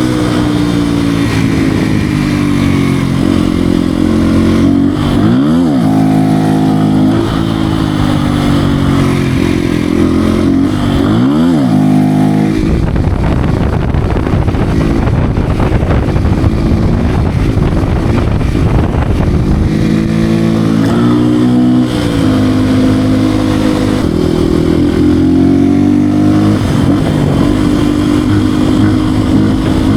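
Beta RR 125 R supermoto's 125 cc single-cylinder engine under way, revving up and down through the gears. The revs shoot up sharply twice, about five and eleven seconds in, and there is a rougher, noisier stretch in the middle.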